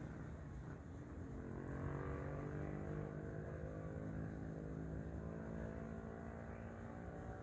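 An engine hum with a steady pitch that swells about a second in and fades near the end.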